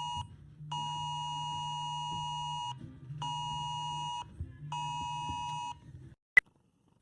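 Emergency alert alarm tone beeping in four long pulses of uneven length, each a steady electronic tone of two pitches together. The beeping stops about six seconds in and is followed by a single sharp click.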